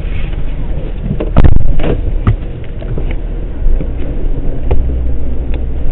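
Wind buffeting the microphone as a low, steady rumble, with a few sharp knocks about a second and a half to two seconds in.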